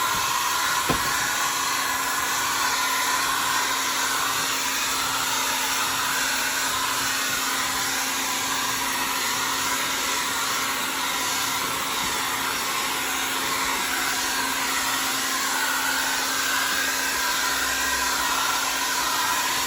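Handheld hair dryer running steadily, an even rushing blow of air over a low steady hum. There is a small click about a second in.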